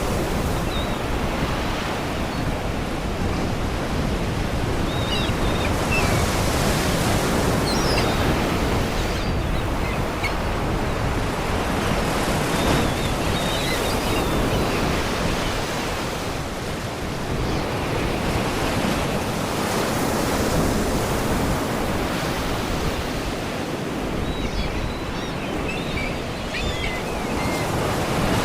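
Sea waves washing and breaking against rocks, a steady surf that swells and eases every several seconds. Faint seagull cries are heard a few times, far off.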